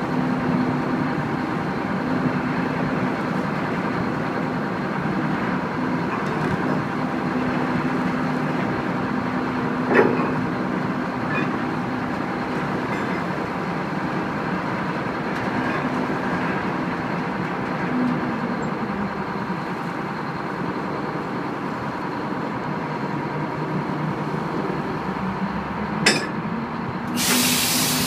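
Tugboat's engines running steadily, a constant drone whose pitch sags and then rises again near the end. Two sharp metal clanks, about ten seconds in and again near the end, from the steel tow wire and shackle gear being handled on the deck, and a short rush of noise just before the end.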